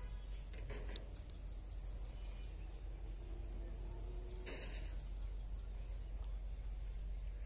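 Open-air ambience: a steady low rumble with birds chirping, most of them in the first two seconds, and a brief burst of noise about four and a half seconds in.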